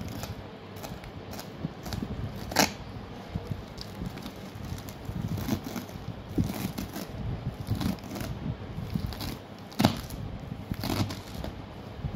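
Kitchen knife slicing through a bunch of fresh spinach on a cutting board: an irregular run of crisp, crunchy cuts, with a few sharper knocks where the blade strikes the board.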